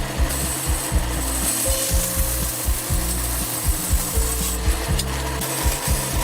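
A rough rubbing, rasping noise of wood being worked by hand or with a tool, over background music with a steady beat and bass line.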